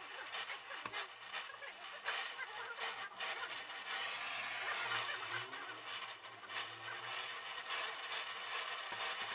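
Gas welding torch flame hissing steadily against a steel radiator pipe, with scattered sharp crackles as the joint is welded.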